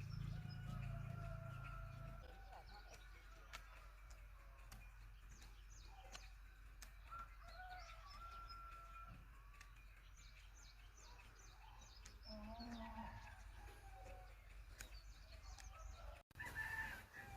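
Faint rural ambience: small birds chirping over and over, with a rooster crowing a few times.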